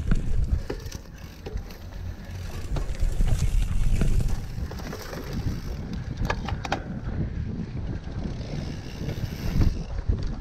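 Wind buffeting the microphone over the rumble of a cyclocross bike's tyres on a sandy dirt track, with a short run of rattling clicks from the bike about six seconds in.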